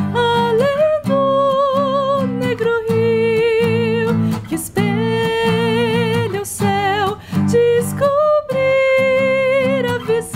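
A woman singing a slow melody with wavering held notes over an acoustic guitar accompaniment, in a live acoustic performance.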